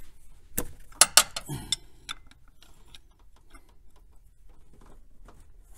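Sharp metallic clicks and clinks of a 17 mm wrench being handled against the freshly tightened banjo bolt, several in quick succession in the first two seconds, then a few faint ticks.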